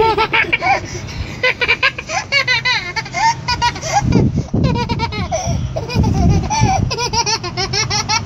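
A toddler laughing hard: a long run of high-pitched giggles in quick bursts.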